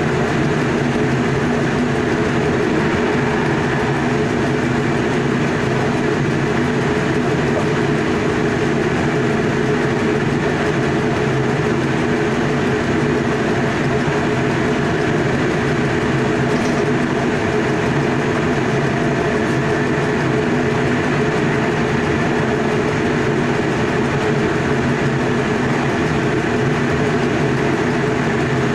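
Electric passenger train running steadily at speed, heard inside the driver's cab: an even rumble of wheels on rail with a few low held tones.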